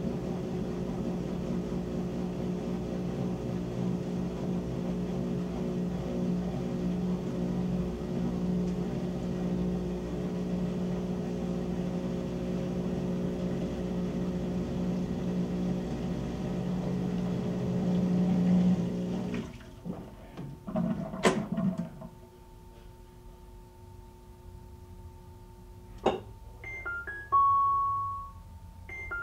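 Whirlpool WTW7300DW top-load washer at the end of its spin: a steady motor hum that swells slightly, then cuts off sharply about two-thirds of the way through as the spin stops. A few clicks follow, then the washer's end-of-cycle chime, a short falling run of beeps ending on a held tone, near the end.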